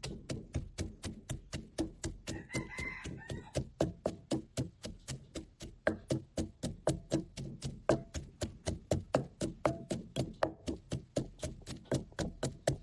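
Wooden pestle pounding chillies in a clay mortar: a steady run of dull knocks, about four a second.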